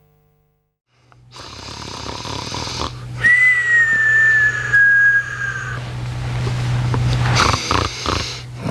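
A person snoring: one long snore with a high whistle running through its middle for a couple of seconds, then a few short snorts near the end.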